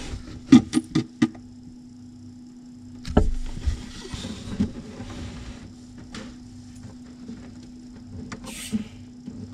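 Hands handling braided steel flexible tap hoses and brass isolation valves under a sink: a few sharp clicks early, a heavier knock about three seconds in, then scattered light ticks and a brief hiss near the end, over a steady low hum.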